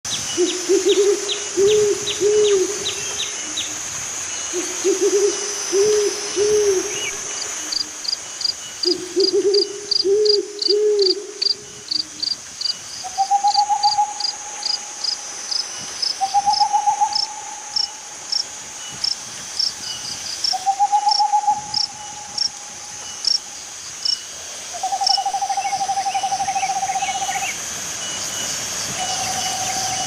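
Owl hooting: three groups of about three low notes in the first twelve seconds, followed by higher, longer drawn-out notes repeating every three to four seconds. Crickets chirp steadily in a regular high-pitched series behind it.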